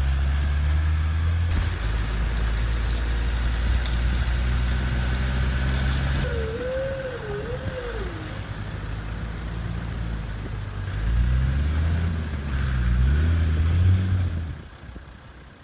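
Truck engine sound effect idling with a steady low hum, then revving in a few rising surges, played for a toy police truck; a brief wavering tone comes about six seconds in, and the engine sound fades out near the end.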